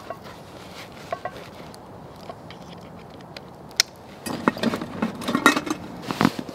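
Fabric stuff sack being rolled up and handled: a few light clicks, one sharper click near the middle, then bursts of rustling near the end.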